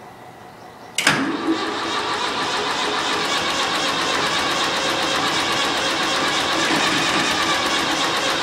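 International crawler tractor's diesel engine catching suddenly about a second in, then running steadily.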